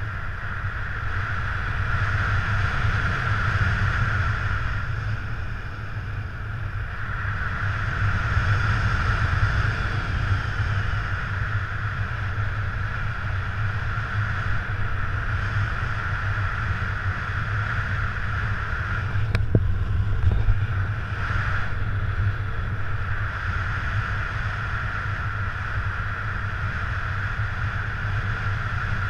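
Wind rushing over the camera's microphone in paraglider flight: a steady low rumble with a hiss that swells and eases, and a single sharp click about two-thirds of the way through.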